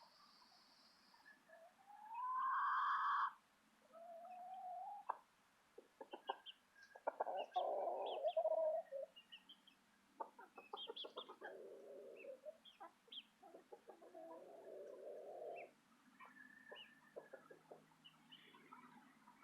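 Chickens clucking and calling, with a louder rising squawk about two seconds in and quick clicking sounds between the clucks.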